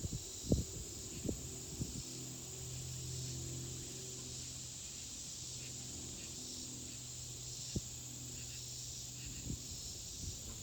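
Cicadas droning steadily, a continuous high-pitched buzz. A low steady hum sits under it from about two seconds in, and a few short thumps fall near the start and once later.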